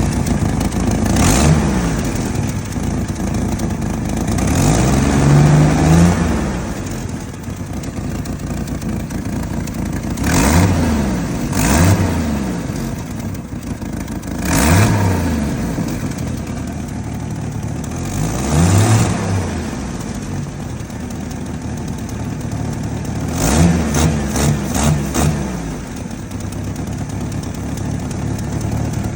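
1989 Jeep Wrangler YJ's 4.2-litre inline-six idling, its throttle blipped again and again, each rev rising and falling back to idle, with a quick run of blips near the end. The owner describes the idle as rough.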